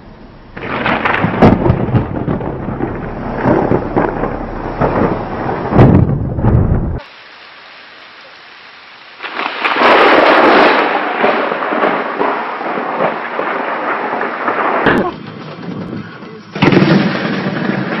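Thunder from lightning strikes in three loud spells, cracking and rumbling, each starting and stopping abruptly.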